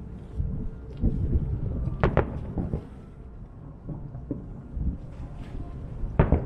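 Aerial firework shells bursting at a distance: a low rumble of booms, with the sharpest a pair of cracks about two seconds in and another pair near the end.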